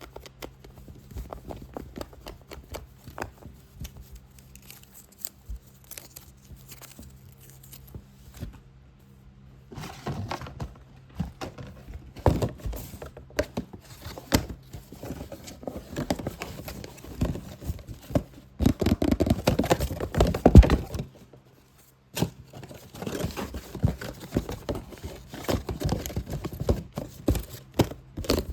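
Fingers tapping and scratching fast on a box. For about ten seconds the taps are light and sparse over a faint low hum. Then the tapping and scratching turn dense and rapid, loudest a few seconds before a brief pause about three-quarters of the way through, and pick up again after it.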